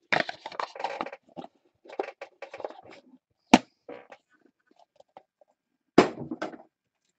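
Trading-card boxes and packaging being handled: rustling and scraping, with two sharp knocks, one about halfway through and a louder one near the end.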